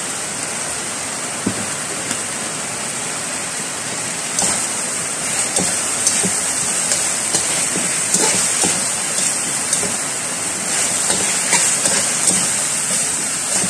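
Chicken frying in soy sauce in a wok, with a steady hiss of sizzling mixed with heavy rain. From about four seconds in, a metal turner scrapes and knocks irregularly against the wok as the chicken is stirred.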